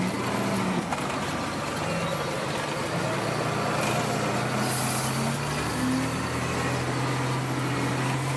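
Steady engine and road noise from inside the cab of a moving vehicle on a snowy road. The engine note shifts slightly about two thirds of the way through, and a brief hiss comes just before that.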